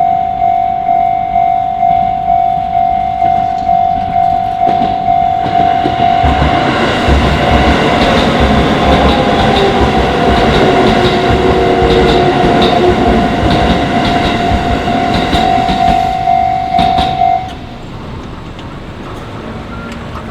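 Railway crossing warning bell ringing as a repeated pulsing ding while a Shin-Keisei Line train runs through the crossing, its wheels clacking over the rail joints. The train noise fades near the end and the bell stops shortly after.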